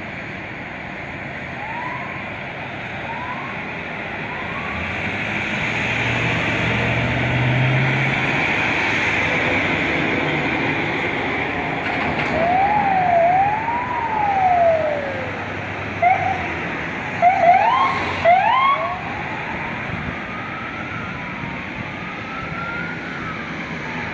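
A siren sounding over steady traffic noise: a few short rising chirps, then a slow rising-and-falling wail a little past halfway, a quick run of short rising whoops, and slower wails near the end.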